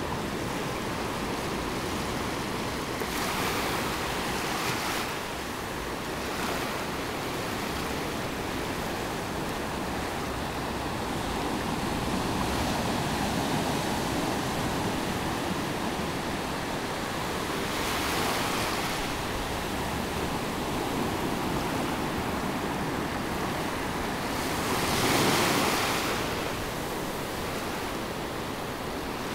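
Small Atlantic surf waves washing up a sandy beach and drawing back, a steady wash of water. Louder rushes of foam come about three seconds in, around eighteen seconds, and loudest around twenty-five seconds.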